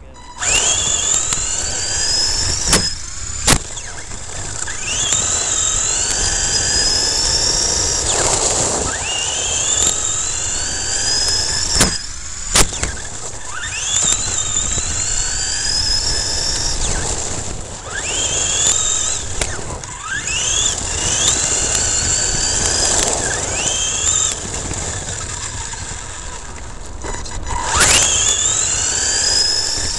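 Ansmann SC4 RC short course truck's motor and drivetrain whining up in pitch each time it accelerates, again and again, over the crunch of its tyres on loose gravel. A few sharp knocks come as the truck bumps over the ground.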